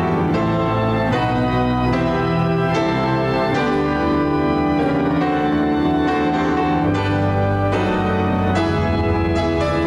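Organ postlude: music of held chords that change every second or so.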